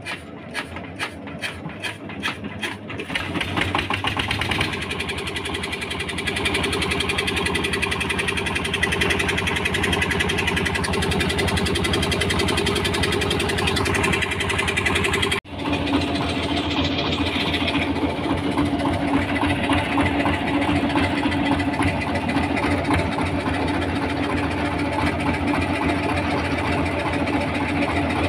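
Boat engine starting up: a few separate beats that quicken over the first three seconds as it catches, then running steadily. There is a short break about halfway through, after which it runs on.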